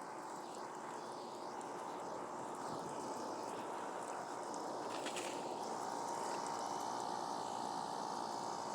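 Air conditioner running with a steady whirring hum. There is a brief click about five seconds in.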